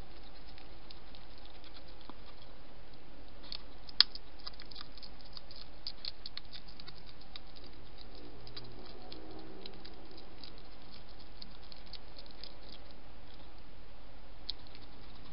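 Wild hedgehog foraging at the edge of a feeding station: a run of small sharp clicks and patters, with one louder click about four seconds in, thinning out after about ten seconds, over steady hiss.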